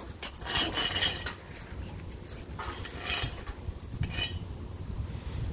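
Short bouts of metal clanking and scraping, three in all: a chain-link kennel gate being opened, then a long-handled pooper-scooper's rake and pan scraping and knocking on a concrete floor as dog waste is scooped up.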